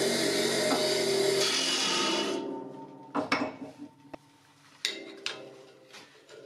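Bench grinder running with a loud hissing whir, which stops about two seconds in. The wheel's hum then fades as it coasts down, and a few sharp clicks and knocks follow as a tool bit is handled on the tool rest.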